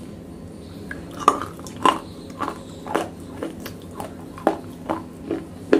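Close-miked crunching of pieces of wet black slate: a run of sharp crisp cracks about twice a second, starting about a second in.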